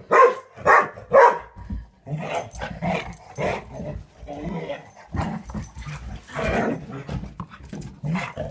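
Dog barking in play: three loud barks in the first second and a half, then quieter, irregular barks and yips.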